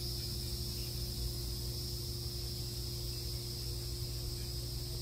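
Steady high-pitched insect chirring over a low, steady hum.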